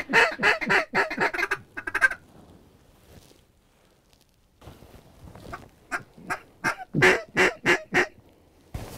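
Mallard-style quacking in quick runs: about eight quacks in the first two seconds, a pause, then a run of about a dozen that grows louder near the end.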